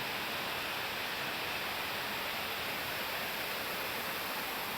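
Steady rush of water from a waterfall, an even hiss without breaks.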